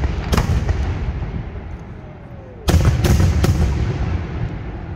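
Aerial firework shells bursting overhead. There is one sharp bang near the start, then three more in quick succession a little under three seconds in, each trailing off in a rolling rumble.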